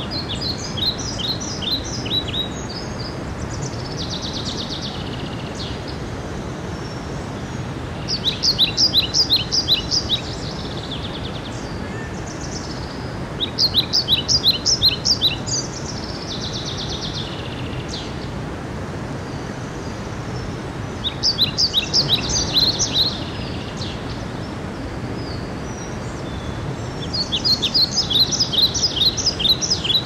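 A songbird sings a short phrase of rapid, repeated high notes five times, about every five to six seconds, over the steady rush of a stream running over rocks.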